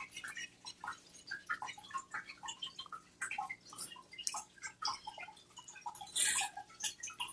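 A parrot's beak working at paper lottery tickets: soft, irregular little clicks and crinkles, with a louder paper rustle about six seconds in.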